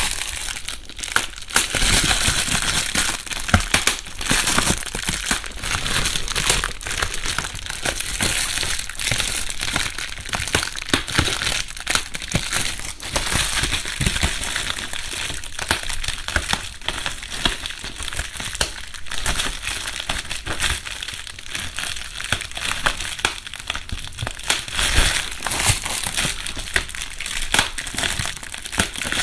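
Bubble wrap being crumpled and squeezed by hand, a continuous rustling crackle with many small pops, recorded binaurally.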